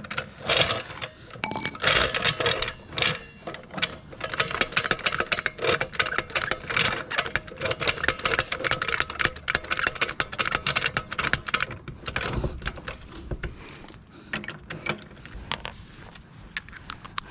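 Tools working at a car wheel during a tire change: rapid, irregular metal clicking and rattling, thinning out to a few scattered knocks about twelve seconds in.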